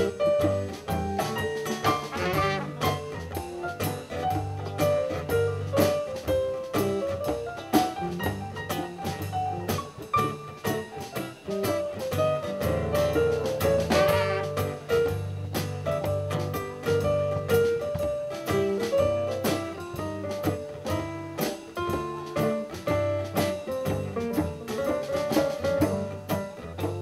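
Live band playing a blues on electric keyboard, electric guitar and drum kit, with a steady beat.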